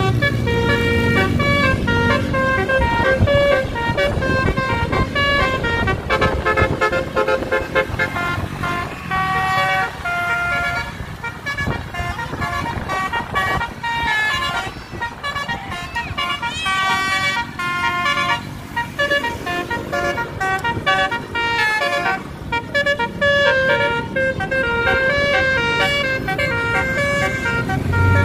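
Tour bus's basuri musical air horn playing a tune of held notes that step from pitch to pitch, over the noise of traffic. Partway through comes a short rising-and-falling glide.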